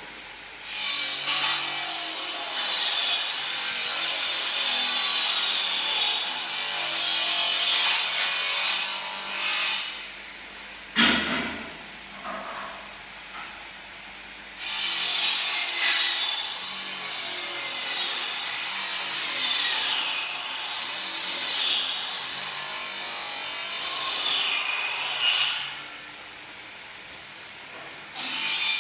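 A hand-held power tool cutting or grinding stone, its high whine rising and falling as it bites and eases off. It runs in two long stretches, with a sharp knock in the pause between them, and starts again briefly near the end.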